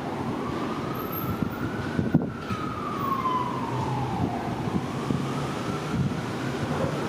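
An emergency vehicle's siren wailing, rising and falling slowly about every four to five seconds. Underneath it is the low rumble of an R143 subway train approaching on elevated track, with a sharp click about two seconds in.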